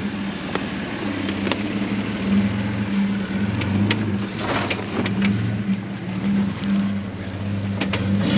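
An off-road vehicle's engine running steadily at low revs while crawling on rock, with scattered clicks and a crunchy stretch of tyres grinding over stones about halfway through.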